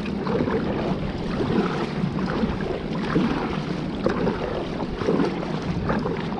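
Paddle strokes and water splashing and sloshing along the hull of a sit-on-top kayak riding low with two people aboard, with water washing in over the deck. Wind rumbles on the microphone.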